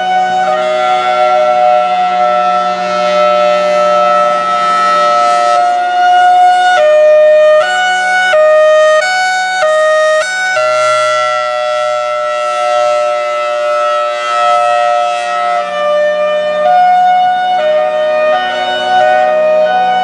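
Federal Signal Thunderbolt 1003 outdoor warning siren sounding a loud, steady wail with a slight drift in pitch. For a few seconds mid-way it switches to a hi-lo pattern, jumping back and forth between two pitches about every half second, then returns to the steady tone.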